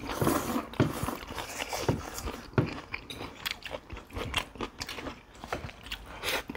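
Eating sounds: people chewing and biting food, with many irregular small clicks and crunches.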